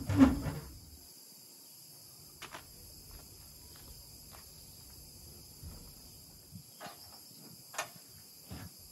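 A heavy thump as a spare wheel and tyre is set down on a Land Rover Series 3's bonnet, then a few light knocks and clicks as it is handled on its bonnet mount. A steady faint high hiss runs underneath.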